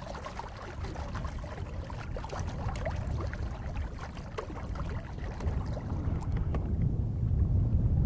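Water splashing and gurgling against a small sailboat's hull as it moves through the water, full of small quick splashes, over a steady low rumble that grows louder near the end.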